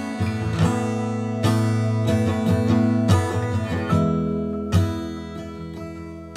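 Background music: strummed acoustic guitar playing chords.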